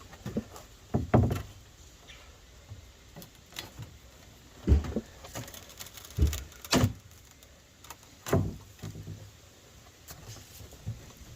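Irregular knocks and thumps of wooden deck boards being worked on, about seven sharp hits spaced unevenly, the loudest near the middle.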